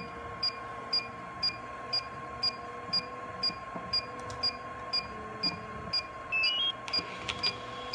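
Electronic beeper sounding a steady run of short, high beeps, about two a second, over a steady background hum.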